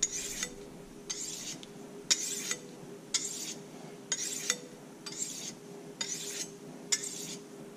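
Fillet knife blade being drawn across a small handheld sharpening stone: short scraping strokes repeated about one or two a second.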